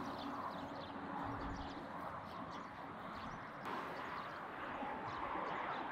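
Outdoor farmyard ambience: small birds chirping in short, scattered calls over a steady background hiss.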